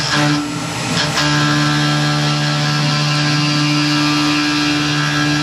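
Tormach PCNC 1100 CNC mill's end mill cutting aluminum at 4000 rpm, a steady pitched whine from the cut with a hiss over it. The whine breaks off briefly near the start, then holds steady from about a second in.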